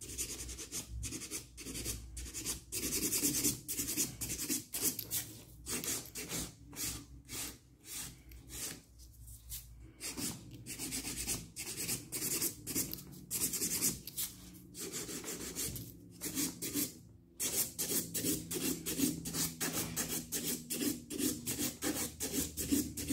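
Hand nail file scraping back and forth over a hardened clear acrylic nail, in quick repeated strokes that pause briefly about two-thirds of the way through.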